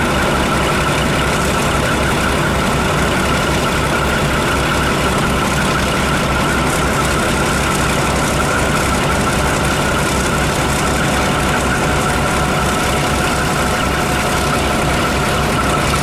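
Maybach diesel engine of the V200 033 diesel-hydraulic locomotive running steadily while standing, a fast, even low beat under a steady high whine, with no change in speed.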